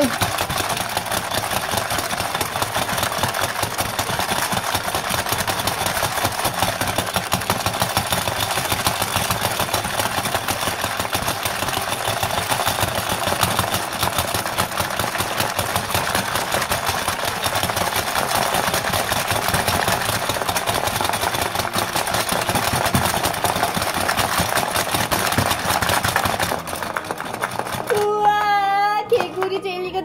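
Fast, continuous clatter of a plastic frog-feeding board game: levers pressed over and over make the frogs' jaws snap and rattle through gel beads in the plastic tray. It stops about 27 s in, and a voice comes in near the end.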